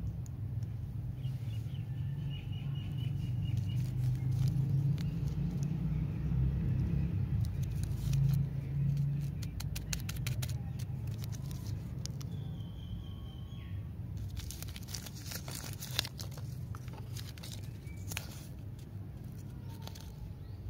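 Plastic candy wrappers crinkling and rustling in the hands, in bursts of sharp crackles mostly in the second half, over a steady low rumble. A few faint chirps are heard.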